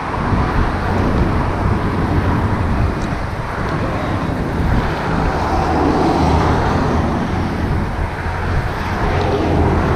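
Road traffic passing close by, a steady rumble of car engines and tyres that swells a little about six seconds in.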